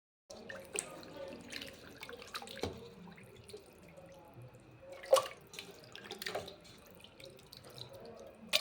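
Water splashing at a kitchen sink, with scattered clinks and knocks of things being handled; the sharpest knock comes about five seconds in and another near the end.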